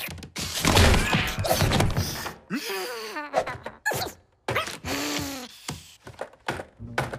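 Cartoon slapstick sound effects of two raccoons scuffling: a run of thuds and knocks, with squeaky, gliding animal chatter in between.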